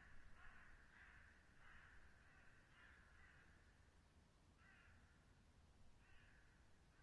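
A crow cawing faintly, over and over, the calls coming close together at first and spacing out in the second half.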